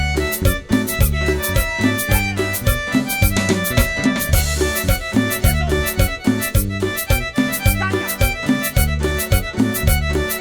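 Band music in a Latin dance style, with a steady beat, a repeating bass line and a melodic lead.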